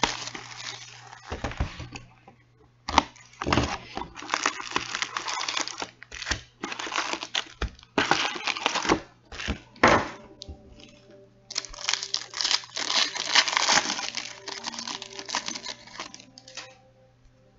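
Packaging of a hobby box of hockey cards being torn open. Wrapping crinkles and rips in irregular bursts with short pauses.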